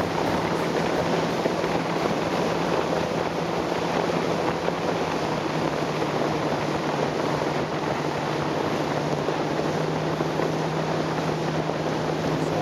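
Evinrude E-TEC 250 V6 two-stroke outboard running steadily at speed, pushing a planing RIB, with a constant low drone. Over it lies an even rush of wind on the microphone and spray off the hull.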